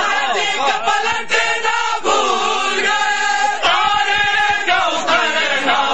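A crowd of men chanting a Shia noha lament together in loud chorus, with short low thuds of matam chest-beating under the voices, thickest in the second half.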